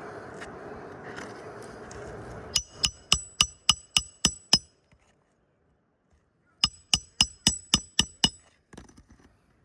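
Hammer driving roofing nails through asphalt shingles. There are two quick runs of ringing metal strikes, about four a second: eight blows, a pause of about two seconds, then seven more.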